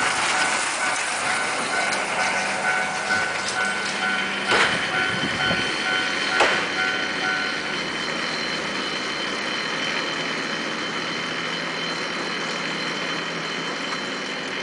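Level-crossing warning signal sounding in a fast repeating pattern, then stopping about halfway through, a sign that the cable car has cleared the crossing. Two sharp knocks come a couple of seconds before it stops, and a steady high hum carries on.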